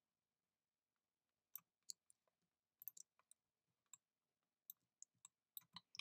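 Faint computer mouse clicks, about a dozen, irregular, starting about a second and a half in.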